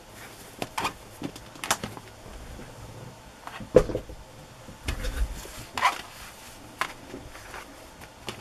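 Cotton fabric scraps being rummaged and laid on a cutting mat: irregular rustles and soft knocks, with one dull thump a little before the middle.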